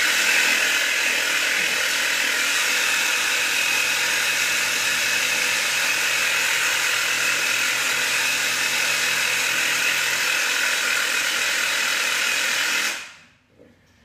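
A small electric motor running steadily with a strong hiss, switched on abruptly and dying away about thirteen seconds in.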